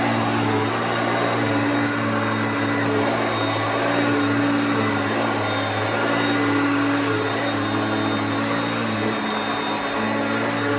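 Hoover Concept upright vacuum cleaner running steadily on carpet, its motor hum wavering slightly in pitch, set to high speed. A faint click about nine seconds in.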